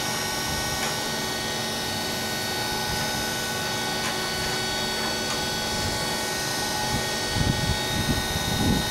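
A diamond saw on a stone-copying machine running steadily with a whine made of several fixed high tones. Irregular low knocks and rumbles come in over it near the end.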